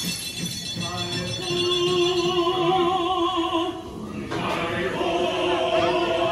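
Ride show soundtrack of a group of dwarf voices singing to music. They hold long, wavering notes in two phrases, with a short break about four seconds in.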